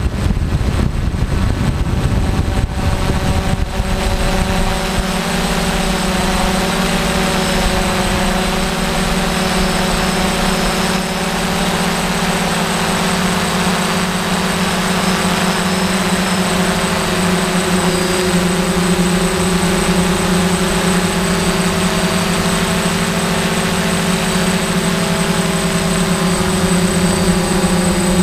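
DJI F550 hexacopter's brushless motors and propellers droning steadily in flight, heard from the camera on board. A low rumble of wind on the microphone fills the first few seconds before the steady hum takes over.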